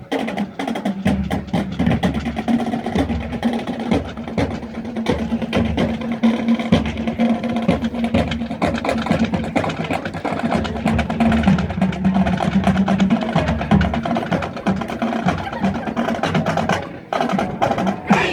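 Marching band music led by percussion: quick, dense drum and stick strikes over sustained low tones.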